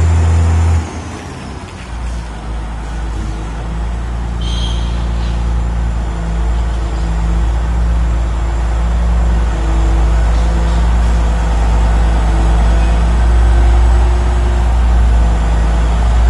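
Caterpillar 16G motor grader's diesel engine running with a deep, steady drone. It drops sharply about a second in, then gradually builds back up as it runs. A brief high squeal comes about four and a half seconds in.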